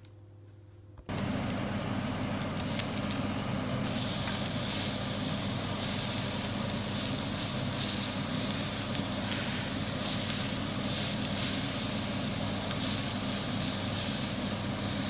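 Steak frying in a hot pan with butter. The sizzle starts suddenly about a second in, with a few pops, and grows louder about four seconds in.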